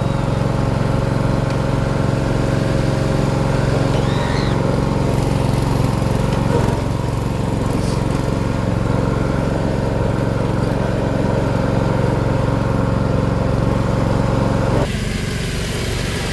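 Riding lawn mower engine running steadily at an even pitch, then dropping suddenly to a quieter drone near the end.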